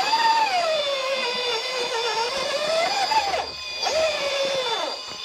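Electric motor and gear drivetrain of a radio-controlled rock crawler whining as it climbs rock ledges, the pitch rising and falling with the throttle over a steady high whine. The sound cuts out briefly about three and a half seconds in, and again near the end.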